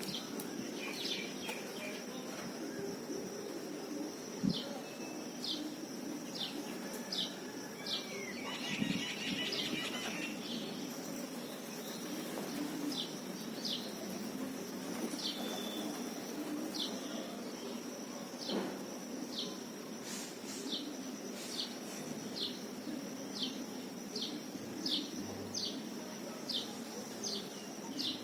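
Morning birds chirping: one bird repeats a short, high, falling chirp about once a second, with a brief flurry of other chirps about a third of the way through. Under it runs a steady high thin whine and a low background hum.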